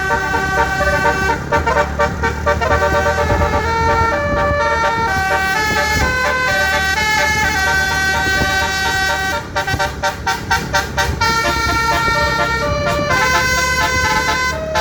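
Telolet Basuri multi-tone bus horn playing a tune of shifting notes over a low engine rumble, with a quick run of short staccato toots about two-thirds of the way through.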